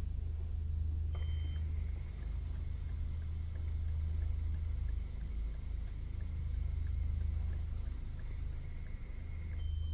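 ARRIFLEX SR3 Super 16 film camera running at 24 frames per second: about a second in, a short high tone marks the start, and the camera then runs with a faint steady high whir. It stops near the end with another short tone.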